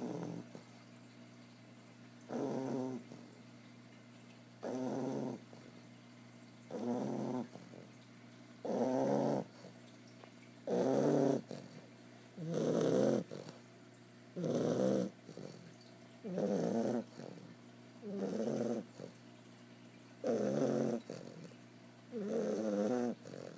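Bulldog puppy snoring loud in her sleep, one snore about every two seconds.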